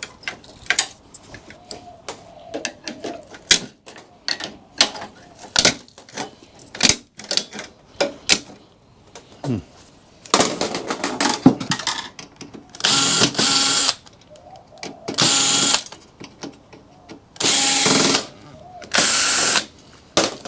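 Metal clicks and knocks of parts being handled, then a power drill running in four short bursts of under a second each, with clinks between them.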